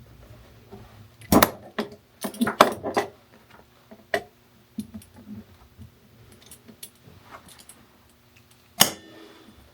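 Sharp metallic clinks and knocks from galvanized steel pipe fittings being handled and fitted together: one knock about a second in, a quick run of clinks around two to three seconds, and another loud knock near the end.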